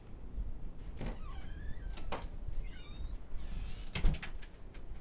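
A few sharp knocks or clicks, the loudest a quick cluster about four seconds in, with faint short squeaky chirps between them.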